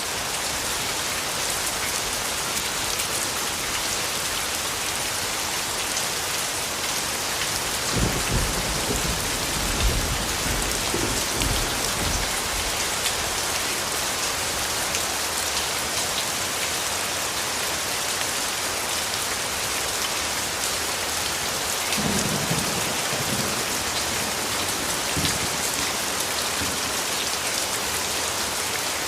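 Steady heavy rain falling, an even hiss. Low rumbles of thunder come in twice, about eight seconds in and again near the twenty-two second mark.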